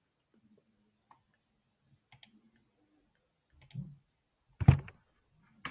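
Scattered clicks and taps of a computer mouse and keyboard, a few at a time, with the loudest, a sharp knock, a little over four and a half seconds in.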